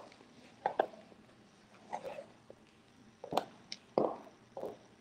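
A handful of short, irregular knocks and clunks from a person moving about and handling things, with quiet room tone between them.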